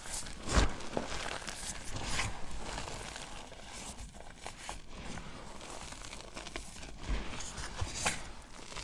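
Bare feet pressing and grinding into a pile of crushed gym chalk, giving irregular dry, powdery crunching and crumbling, with a heavier thump about half a second in and a few more near the end.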